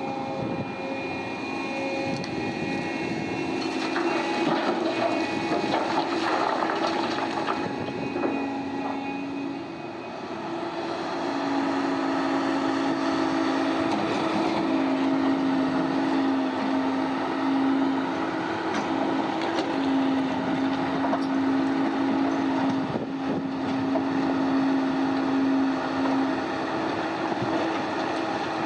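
Heavy diesel earthmoving machinery running steadily, its engine note shifting up and down under load, with a stretch of clattering about four to seven seconds in.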